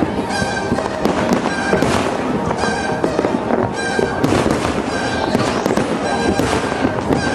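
Aerial fireworks shells bursting in quick succession, many sharp bangs and crackles one after another, with music playing along underneath.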